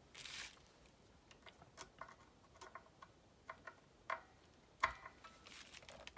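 Scattered light clicks and taps of small hand tools on electric guitar hardware while the setup is adjusted to cure a buzz on the first fret, with a brief scrape at the start. Two sharper clicks come about four and five seconds in.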